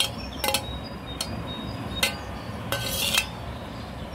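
A stainless steel plate clinking and scraping against the rim of a steel mixing bowl as chopped apple is tipped in: a handful of sharp metallic clinks with brief ringing, the longest scrape near the end.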